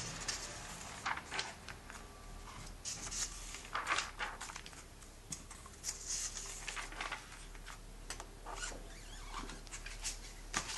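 Glossy comic-book pages being turned by hand: a string of short, irregular papery swishes and rustles.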